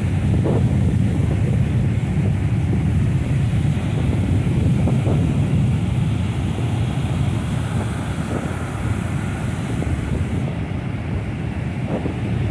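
Wind buffeting the microphone in a steady low rumble, over the hiss of surf breaking and washing up a sandy beach.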